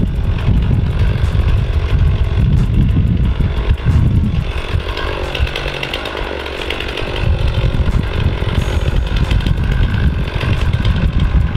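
Chainsaw running up in a tree, stronger in the middle stretch as it cuts, over a heavy, uneven low rumble.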